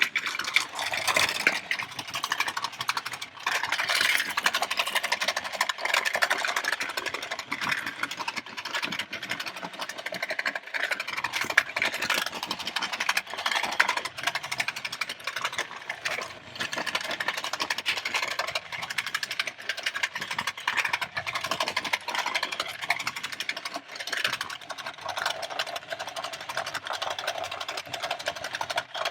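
Battery-powered toy remote-control bulldozer running: its small motor and plastic gears whirring steadily while it drives and spins, with clatter and knocks mixed in.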